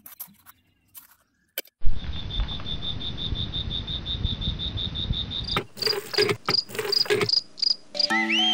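Crickets chirping: a fast, steady high trill that starts abruptly about two seconds in, changing after a few seconds to slower, evenly spaced chirps about twice a second. Before it come a few faint scrapes of a tiny shovel in sand, and music begins right at the end.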